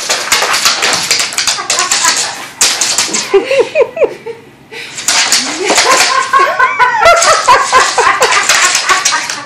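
A husky's claws clicking and skittering fast on a slippery new wood floor as it scrambles for grip, in rapid runs with a short lull near the middle. Short bending voice sounds, laughter or the dog's own whines, come in about a third of the way in and again in the second half.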